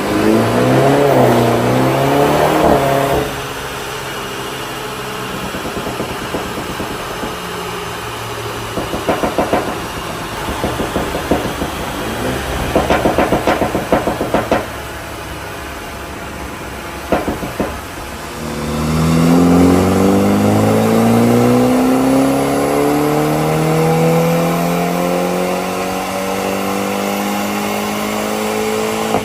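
BMW G30 530i's ECU-tuned 2.0-litre turbocharged four-cylinder, heard through its valved cat-back exhaust. It revs at the start, then gives rapid clusters of pops and crackles on the overrun over several seconds, a couple more pops, and finally a long, steadily rising rev as it accelerates.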